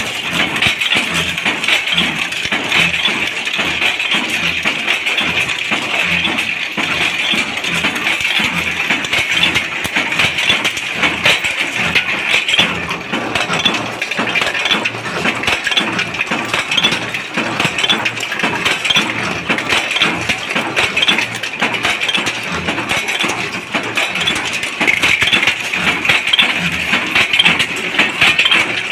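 Bolt-making machine running at speed: a steady, rapid mechanical clatter with metallic clinking as steel bolt blanks drop into a metal tray.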